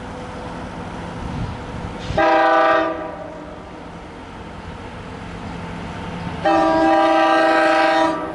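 Long Island Rail Road DM30AC diesel locomotive sounding its air horn twice, a short blast and then a longer one of nearly two seconds, as it approaches a grade crossing, with the rumble of the approaching train growing beneath.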